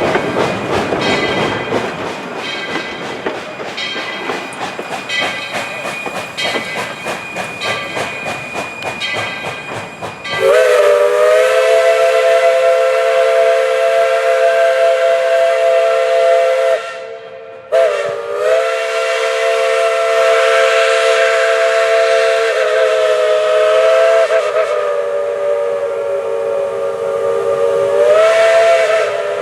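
Train cars rolling past with wheels clicking over rail joints, then the Baldwin steam locomotive No. 12's whistle sounds a long blast of several tones at once. After a brief break about seven seconds in, a second, longer blast follows.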